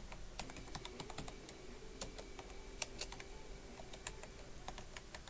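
Computer keyboard being typed on: quiet, irregular key clicks a few to the second as a search phrase is entered, over a faint steady hum.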